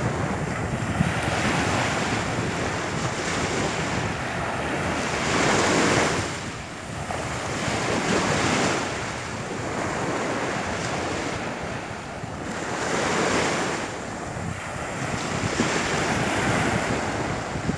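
Ocean surf washing onto a sandy beach, its rush swelling and falling every few seconds as waves break, with wind buffeting the microphone.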